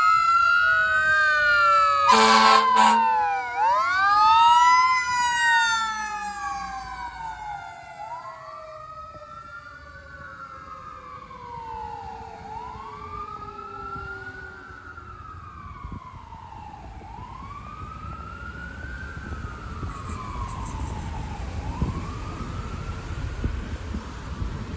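Fire truck siren wailing up and down, with an air horn blast of about a second roughly 2 s in. A second, lower siren tone glides slowly downward under the wail. After about 6 s the siren grows quieter as the truck moves away, and a low rumble builds near the end.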